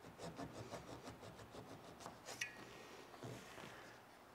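Flush-cut saw, its blade held flat on the wood, sawing a wooden bung off flush with quick, faint back-and-forth strokes, about six a second. A single sharp click about two and a half seconds in.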